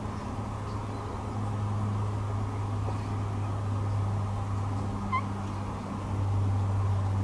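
A cat's single brief, rising chirp about five seconds in, over a steady low background hum.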